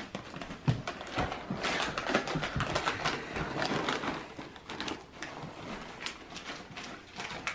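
Plastic pouch of trail mix being handled and crinkled in the hands: a run of irregular crackles and clicks.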